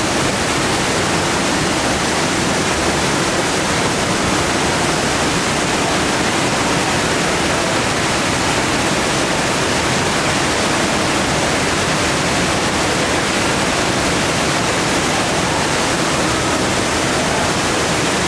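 Stoddard Canyon Falls, a narrow waterfall, plunging into its plunge pool in a rock grotto: a steady, unbroken rush of falling water.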